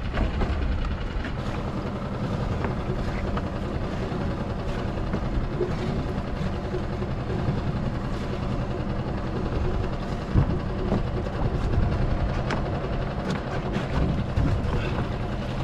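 Steady low rumble of a small fishing boat's motor idling, with a few knocks and rattles as a crab pot line is hauled in by hand, the sharpest about ten seconds in.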